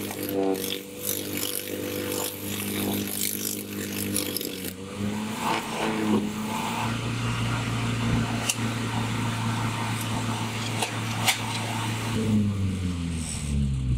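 An engine running steadily, its pitch shifting a few times and falling away near the end as it winds down, with a few sharp clicks over it.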